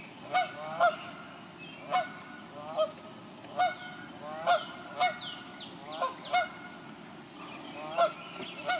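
Canada geese honking repeatedly: about a dozen short honks, irregularly spaced roughly a second apart, some in quick pairs.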